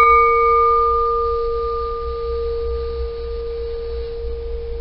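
A short scuba-tank cylinder bell ringing on after a strike from a rubber caster. It holds one long, clear low note that slowly fades, and its higher overtones die away within the first second or so.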